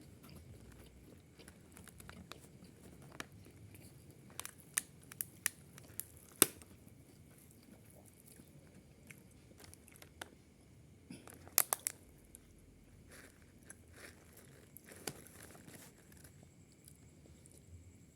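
A person eating a boxed rice meal close to the microphone: chewing, with sharp crunchy clicks of bites. There is a run of clicks a few seconds in, the last and loudest of them about six seconds in, and another quick cluster a little past the middle.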